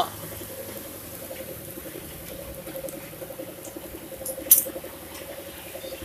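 Heavy rain pattering steadily, with one sharp click about four and a half seconds in from the metal socket wrench and clutch-hub nut being handled.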